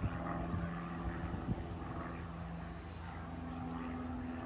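A steady engine drone, its pitch stepping up a little about three seconds in.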